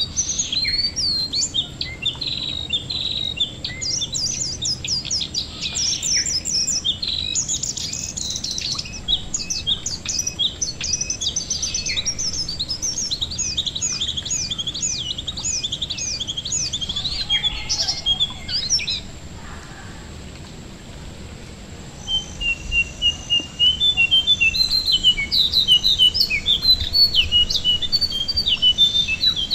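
Jongkangan songbird singing fast chattering phrases of quick high notes. The song breaks off about two-thirds of the way through and resumes as a run of short repeated notes. Light rain patters on water underneath.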